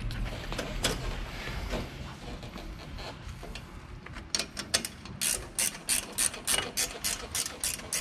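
Hand ratchet wrench clicking in quick, even strokes, about five clicks a second, starting about four seconds in as a fastener is wound in.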